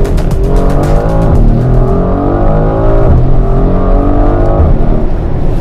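Mercedes-AMG GLC 63 S Coupe's twin-turbo V8 accelerating hard, heard from inside the cabin. The revs climb steadily and drop back at three upshifts, about a second and a half apart.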